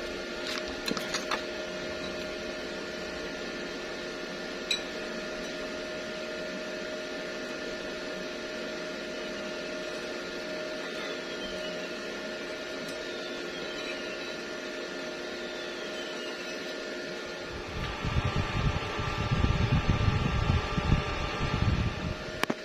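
Steady machine hum made of several fixed tones over a hiss, like a running fan. A few light clicks come in the first seconds, and from about 18 seconds in an irregular low rumbling with knocks joins it.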